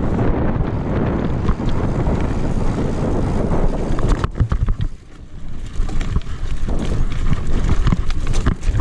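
Wind buffeting the microphone of a camera riding along on a mountain bike, with the bike's rattles and knocks over rough, sandy ground. The noise drops briefly a little before halfway, then picks up again.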